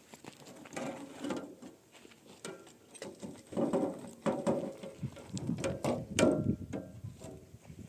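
Mortar being mixed by hand: irregular scraping and knocking strokes of a tool through the wet mix, with sharp clicks, busiest in the second half.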